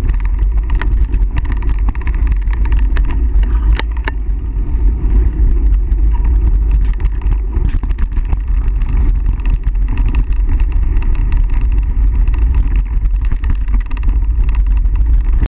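Wind rushing over the microphone of a handlebar-mounted camera on a mountain bike at speed, with the steady rumble of tyres on a dirt trail and the bike rattling over bumps. A few sharp clacks come about four seconds in.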